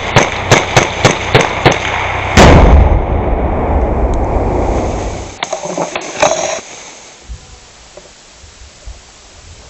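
Rifle gunfire, about four shots a second at first, then a very loud blast about two and a half seconds in with a long low rumble. A few more shots follow about three seconds later, then the firing stops.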